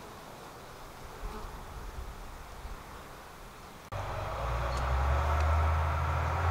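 Faint background noise, then about four seconds in a steady low droning hum cuts in abruptly and stays loud.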